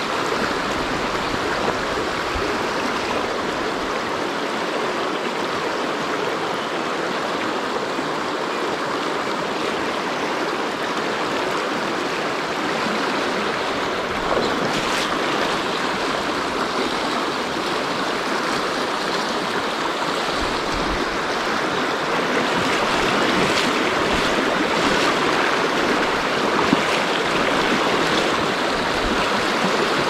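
Fast, shallow mountain stream rushing over stones in riffles, a steady rush of water that grows a little louder in the last third.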